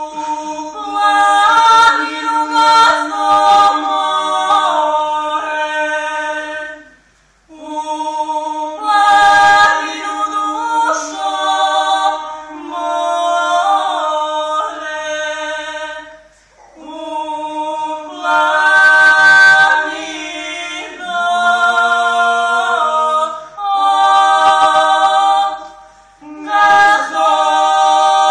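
A cappella vocal trio, two men and a woman, singing a Serbian folk song: a low note held steadily under the moving melody, sung in long phrases with short breaks between them.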